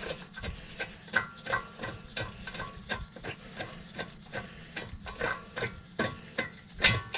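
Irregular metallic clicking and clinking, a few clicks a second, as a 17 mm wrench backs out a front brake caliper bolt.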